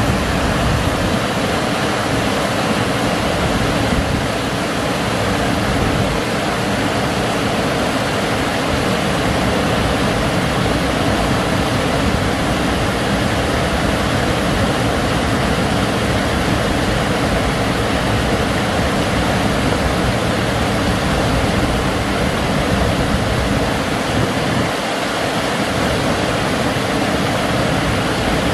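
Water pouring over a low weir into the river: a steady, unbroken rush of falling water.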